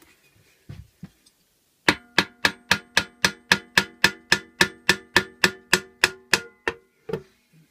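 Hard hammer tapping around the cast aluminium crankcase cover of a Honda GXV160 mower engine to free it from its gasket: a quick, even run of about twenty sharp, ringing metallic strikes, roughly four a second. It starts about two seconds in and stops near the end.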